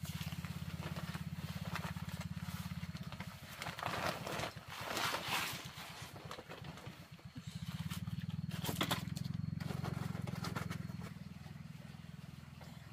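Cement powder pouring out of a paper sack onto a heap, with the sack rustling and scraping, loudest about four to five seconds in. Under it runs a steady low hum like a small engine, which dips in the middle.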